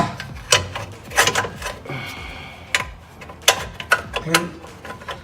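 Metal clinks and knocks of hand tools and suspension arm hardware being handled, with sharp strikes at irregular intervals and a brief faint ring about two seconds in.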